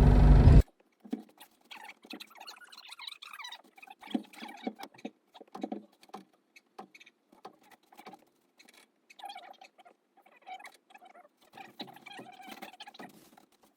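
A tractor engine running cuts off suddenly about half a second in, followed by scattered light metal clicks, scrapes and short squeaks of lug nuts being threaded onto the wheel studs by hand.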